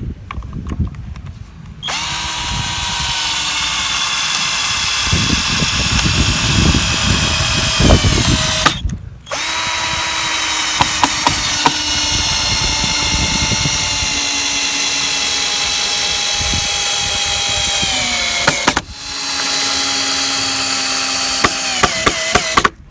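Electric drill-driver driving screws to fasten a guide board onto a log. It runs in three long bursts, and the motor's pitch drops near the end of each.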